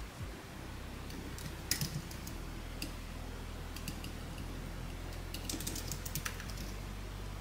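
Typing on an Apple Magic Keyboard: light clicks of its low-profile keys, in short, uneven runs of keystrokes.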